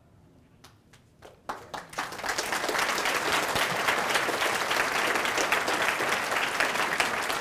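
Audience applause: a few scattered claps at first, swelling into full, steady clapping from the whole room about two seconds in.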